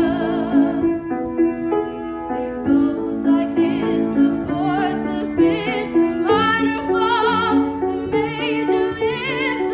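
A young woman singing solo with vibrato over an instrumental accompaniment of steadily repeated broken-chord notes.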